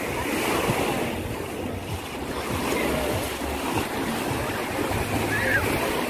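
Small waves washing onto a sandy shore in a steady wash of surf, with wind buffeting the microphone. A short high-pitched call is heard near the end.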